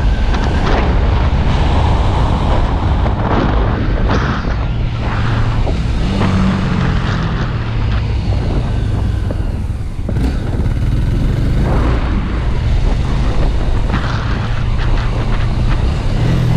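Honda Twister motorcycle on the move: its engine runs with a steady low hum beneath heavy, even rushing noise.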